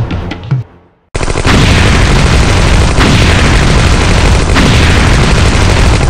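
Drum music fades out, and about a second in a loud explosion sound effect starts suddenly and runs about five seconds as a dense, unbroken rumble.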